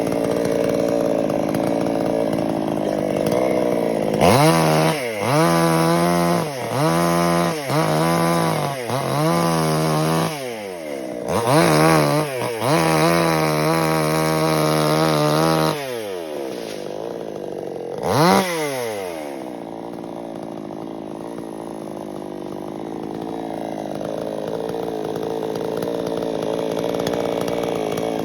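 Chainsaw engine idling, then revved in a series of short bursts from about four seconds in, held at high revs for several seconds, revved once more, and settling back to a lower steady run.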